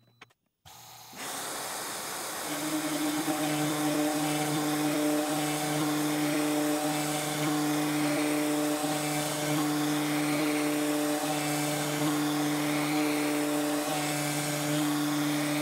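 CNC router spindle and end mill cutting plywood. A steady hiss starts about a second in, and about a second later a steady pitched hum joins it and holds.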